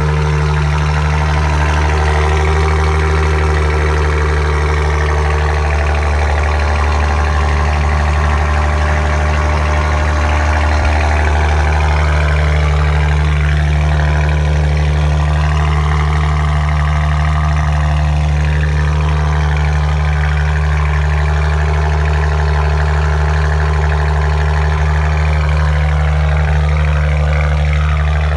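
Maserati Ghibli engine idling steadily after a cold start, a constant low drone. A fainter higher tone rises and falls above it, mostly in the middle and near the end.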